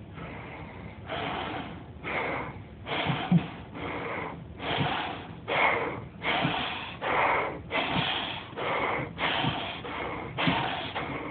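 A person breathing heavily and rapidly inside an alien-head mask, gasping in and out as if short of air. The breaths start about a second in and come in quick succession.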